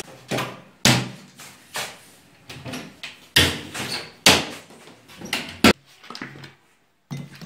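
Wooden wardrobe and kitchen cabinet doors banged shut hard, one after another: about half a dozen sharp bangs spread across several seconds, each with a short ring of the room after it.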